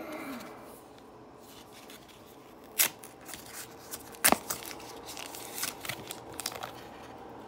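Foil Pokémon booster-pack wrappers rustling and crinkling as the packs are handled and sorted on a table, with two sharp snaps about three and four seconds in.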